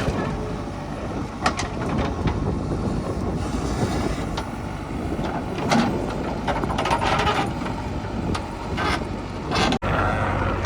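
Heavy diesel machinery running, a backhoe loader and tractors at work, with scattered knocks and clanks over a steady engine noise. The sound cuts out for an instant near the end.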